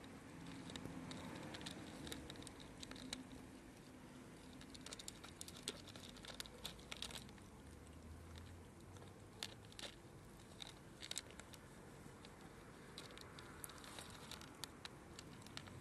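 Several cats crunching dry kibble from a plastic tub: faint, irregular small clicks and crackles of chewing.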